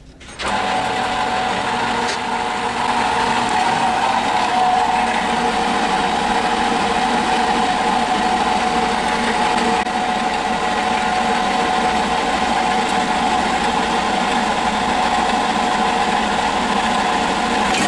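Horizontal metal-cutting band saw switching on about half a second in and running steadily, its blade cutting through aluminum bar stock, with a steady whine over the cutting noise.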